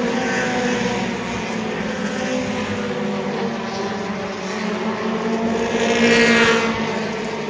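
Mini stock race cars racing around an oval track: the overlapping engine notes of several cars in a steady drone, swelling as one passes closer, loudest about six seconds in.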